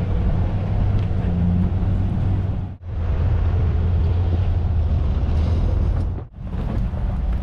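Pickup truck driving on a paved road, a steady low engine and road rumble with wind on the outside-mounted microphone. The sound drops out briefly twice, about three and six seconds in.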